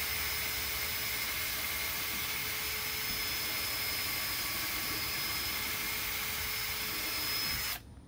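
Cordless drill running at a steady speed, boring a screw hole through a hard plastic door-handle accent, with a steady whine; it stops suddenly near the end.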